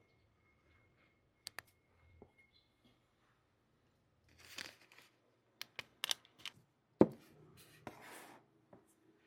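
Craft-product packaging being handled and opened: plastic wrapping rustling and tearing in short bursts, with several sharp clicks and one louder knock about seven seconds in.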